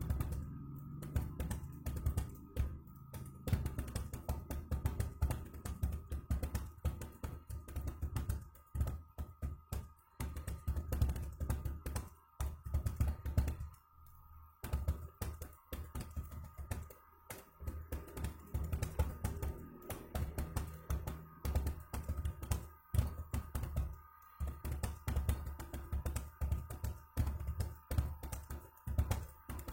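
Rapid, continuous typing on an external computer keyboard in a one-minute typing speed test, keys struck by long fingernails, with brief pauses a few times. Background music plays underneath.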